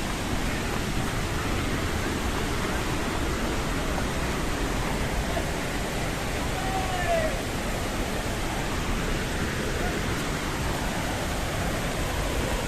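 Steady, even rush of a large waterfall in full monsoon flow: Dudhsagar Falls.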